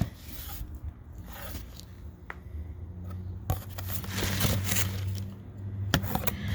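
Shipping packaging being torn and scraped open by hand, in irregular rips and scrapes with a few sharp clicks. A low steady hum comes in about halfway through and grows louder.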